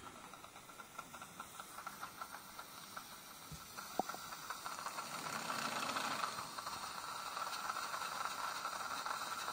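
Faint steady hiss of suction and saline irrigation during guided implant osteotomy drilling with a 7 mm drill and stopper. It grows a little louder about halfway through, with a single small click about four seconds in.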